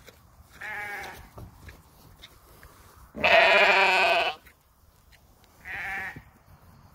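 Lamb bleating three times: a short bleat about half a second in, a loud, longer, wavering bleat past the middle, and another short bleat near the end.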